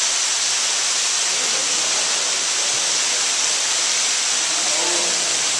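Thin streams of water falling from the rim of a cenote into the pool below, a steady hiss of splashing water.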